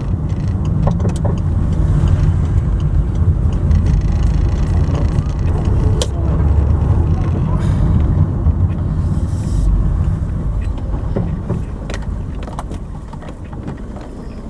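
Car engine and road noise heard from inside the cabin while driving: a steady low rumble that grows quieter over the last few seconds, with a few short clicks.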